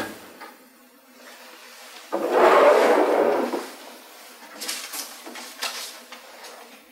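A rush of breathy noise lasting about a second and a half, about two seconds in, then a few light crackles of paper sheets being picked up and leafed through near the end.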